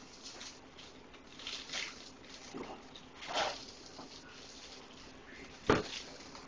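Rustling and scraping of a paper food bag and a utensil during cooking prep, with one sharp knock about five and a half seconds in.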